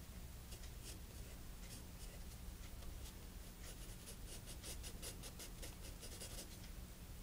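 Pencil scratching across sketchbook paper in short back-and-forth strokes, coming quickly in a dense run from about halfway through, over a steady low hum.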